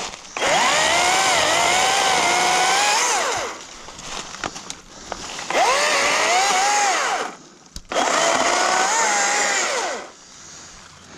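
Chainsaw cutting wood in three bursts of two to three seconds each, its engine pitch sagging and recovering as the chain bites, then dropping back at the end of each cut.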